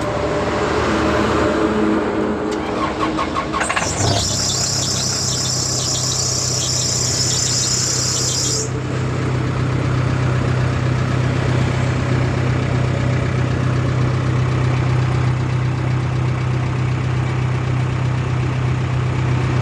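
Case 580N backhoe loader's diesel engine being started: a few seconds of cranking, then it catches about four seconds in and settles into a steady idle, with a high hiss for the first few seconds after it fires.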